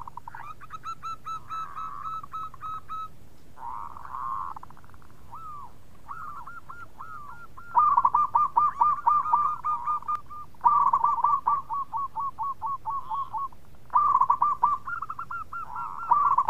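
Zebra dove (perkutut) singing its 'bekur' song: several phrases of quick, rolling coos, one after another, the loudest phrases coming from about halfway in.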